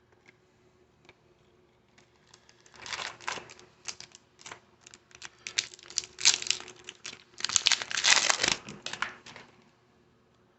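A baseball card pack's foil wrapper crinkling and being torn open, in irregular bursts of crackling from about three seconds in until near the end.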